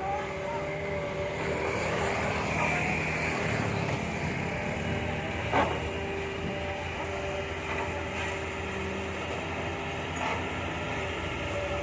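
Hitachi hydraulic excavator working, its diesel engine and hydraulics running with a steady whine, and one sharp knock about halfway through.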